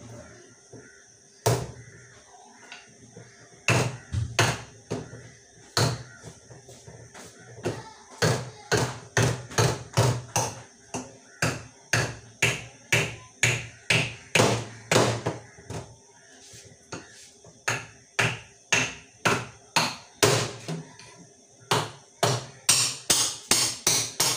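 A large kitchen knife hacking again and again into a hard-rinded pumpkin on a counter, each blow a sharp knock. The rind is so hard that it takes many blows. The knocks are scattered at first, settle into about two a second from about a third of the way in, and come faster near the end.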